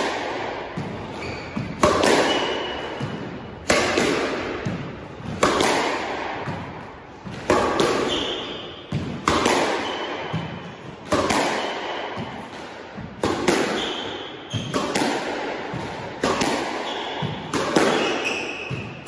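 A squash ball hit over and over with backhand straight drives: each shot is a sharp crack of racket on ball and ball off the front wall, echoing in the enclosed court. There is about one shot every two seconds, around ten in all.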